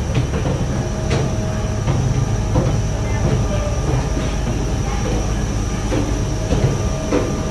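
Steady low rumble and drone of a parked airliner and its ground equipment at the gate, with a thin high whine held throughout and a few faint knocks.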